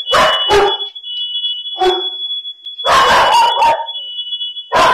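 A dog barking loudly in short bursts: two barks at the start, one at about two seconds, a quick run of barks around three seconds and another near the end. Under the barks a smoke alarm sounds a steady, high-pitched tone, set off by smoke from a fire in the kitchen.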